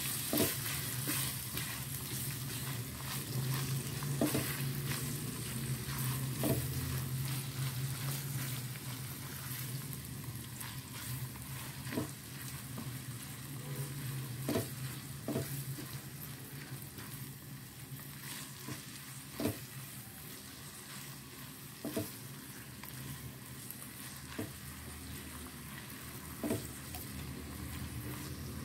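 Minced chicken sizzling as it fries in oil in a wok, stirred with a silicone spatula that scrapes and taps the pan every few seconds. A low steady hum runs underneath.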